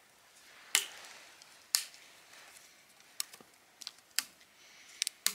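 Dry dead twigs snapped by hand, a series of sharp cracks about once a second. The crisp crack is the sign that the wood is dry enough for kindling.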